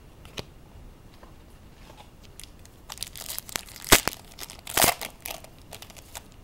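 Wrapper of a football trading-card pack being torn open and crinkled by hand. There is a faint tick about half a second in, then a cluster of crackling tears and snaps in the middle, the loudest near the middle.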